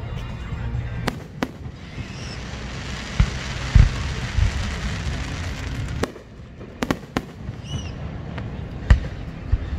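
Fireworks display: aerial shells bursting in sharp bangs and deeper thumps, with a stretch of crackling hiss in the middle.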